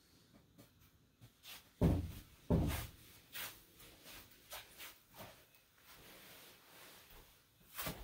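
Soft footsteps of tabi-clad feet on tatami mats: two heavier thumps about two seconds in, then lighter steps about a second apart, and a final thump near the end as the walker kneels down.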